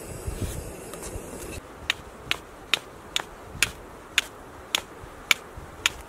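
Flint and steel being struck over a tinder bundle: nine sharp metallic clicks, about two a second, starting a couple of seconds in, as the steel striker is scraped down the flint to throw sparks.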